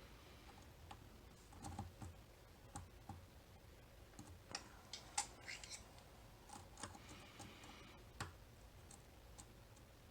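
Lock pick and tension wrench working the pins of a Mul-T-Lock Interactive cam lock: faint, irregular small clicks with brief light scraping.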